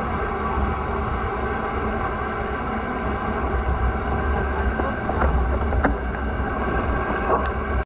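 Wind buffeting the microphone over a steady hiss of tyres on a rain-soaked road while riding in the rain. A few light ticks come in the second half.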